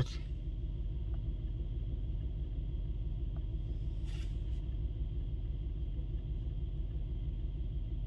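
Mercedes-AMG GT 63 S twin-turbo V8 idling steadily, a low even rumble heard from inside the cabin. The car is in for a misfire complaint.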